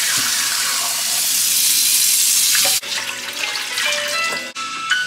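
Kitchen tap running hard into a stainless steel bowl of meat in the sink, a steady hiss of splashing water that cuts off a little under three seconds in. After that, background music with a simple melody plays while the water is poured off from the bowl into the sink.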